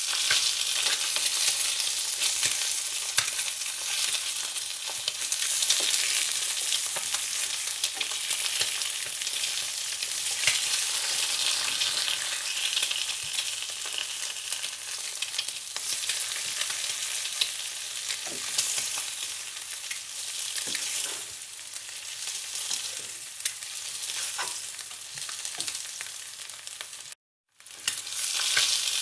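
Food frying in hot oil, a steady sizzle with scattered crackles. It cuts out abruptly near the end and starts again a moment later.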